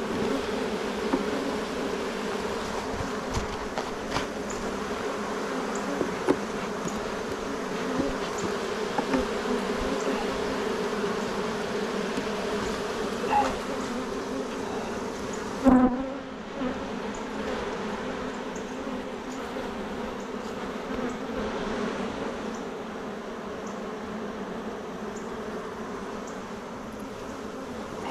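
Honeybees buzzing in a steady hum around an opened hive, with scattered light clicks and one louder knock about halfway through.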